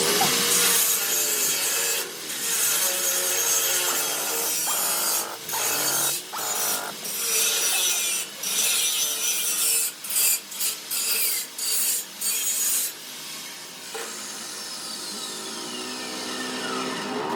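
Angle grinder grinding steel in a run of short stop-start passes, a loud, bright hiss, then released so the disc winds down with a falling whine near the end.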